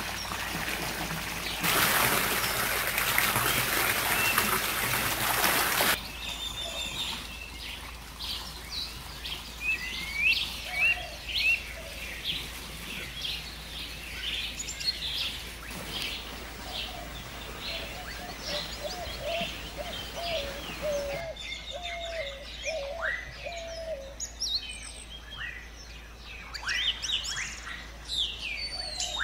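Water from a ceramic urn fountain splashing into its tiled pool, louder from about two seconds in, then cut off suddenly about six seconds in. After that, several birds chirp and sing, with a lower call repeated in quick short notes for a few seconds in the middle.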